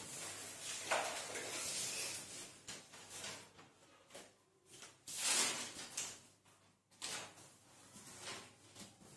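Whiteboard marker rubbing and squeaking across a whiteboard as words are written, in irregular strokes with short pauses between them.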